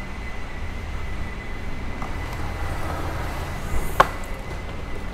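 Steady low background hum with one sharp metallic click about four seconds in, as a bunch of keys held in the hand knocks against the rear of the car.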